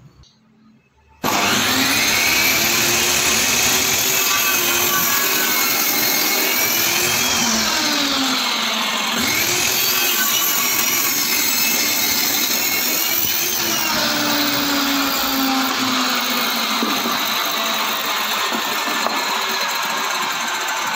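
Table saw running and ripping a strip off a pine block. The steady blade whine starts abruptly about a second in, and its pitch wavers and dips as the blade takes the cut.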